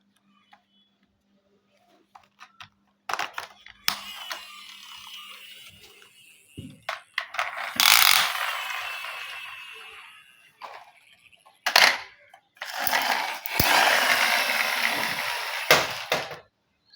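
Toys clattering: clicks and knocks, then two long rattling, scraping stretches that fade out slowly.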